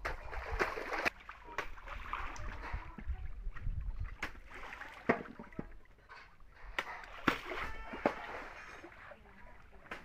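Water splashing and sloshing in a concrete tank as custard apples are washed by hand, with scattered sharp knocks and clatters.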